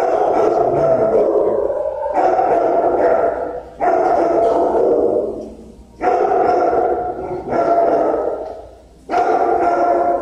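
Dogs barking in a shelter kennel, the barks echoing off hard walls into a loud, continuous din that surges in fresh waves about every two seconds.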